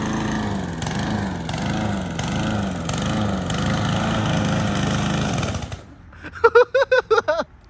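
A 170 cc four-stroke lawn mower engine running under load, its speed dipping and recovering about twice a second, then cutting out suddenly near the end as the mower stalls. A person's voice follows briefly.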